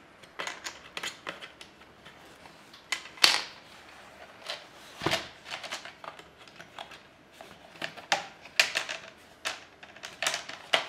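Plastic display bezel of a Samsung Chromebook being fitted and pressed onto the lid, its plastic clips clicking and snapping: a scattered series of sharp clicks, the loudest about three seconds in, and more of them near the end.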